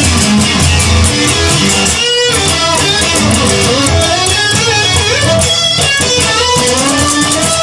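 Band music between sung lines: electric guitar and bass playing over a steady beat with a regular ticking cymbal.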